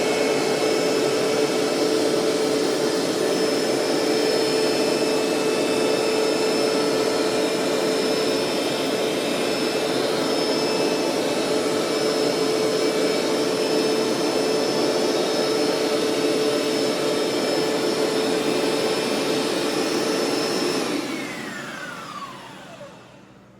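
Hoover SteamVac SpinScrub 50 carpet cleaner running steadily, its motor whine holding one pitch. About three-quarters of the way through it is switched off, and the motor winds down with a falling whine.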